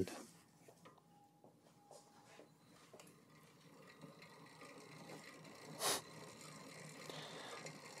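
Near silence, then faint ticking from the freewheel of the Aventon Aventure e-bike's spinning rear wheel, with one brief swish about six seconds in, as the freshly trued disc brake rotor is checked for rub.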